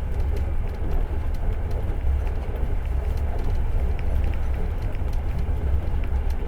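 A moving passenger train heard from inside the carriage: a steady low rumble of wheels on rail, with faint scattered clicks.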